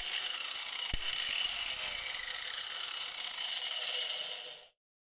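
A mains-powered appliance or power tool running from a newly installed 230 V socket as its final test: a steady whooshing noise with a faint high whine and a single click about a second in, cutting off abruptly near the end.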